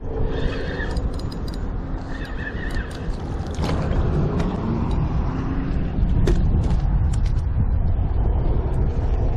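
Wind rumbling on the microphone, with two short high-pitched calls in the first three seconds and a few sharp clicks later.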